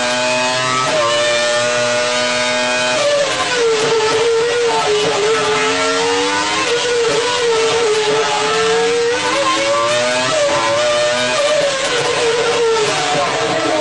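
Formula 1 V10 engine running at high revs, its pitch dropping about three seconds in and then rising and falling several times as the throttle and gears change.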